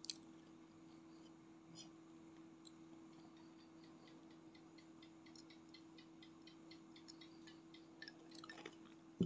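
A person drinking iced tea from a glass: a run of faint small clicks and swallows over a low steady hum, with a sharp knock near the end.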